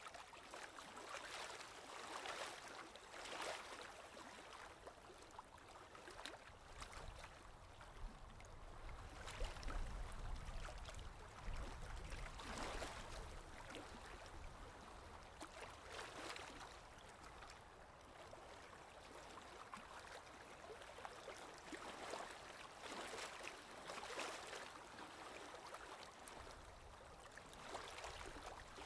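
Faint scratching of strokes being drawn on paper, coming irregularly in short strokes of about half a second to a second, with a low rumble in the middle of the stretch.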